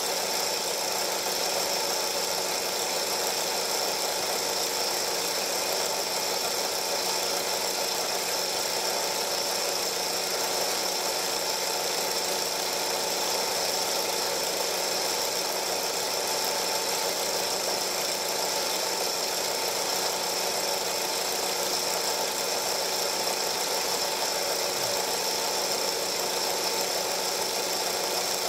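Film projector running: a steady whir and hum that does not change at all.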